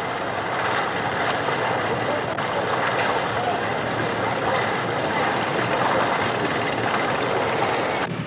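Steady rushing noise of an old passenger ferry and its harbour surroundings. Just before the end it gives way to a low, rhythmic chugging.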